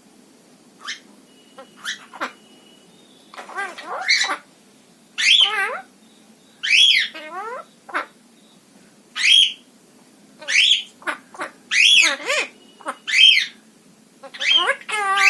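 Pet parrot giving a run of harsh, squawking calls, each rising and falling in pitch. A few short faint calls come first, then about three seconds in the calls turn loud and come about one a second.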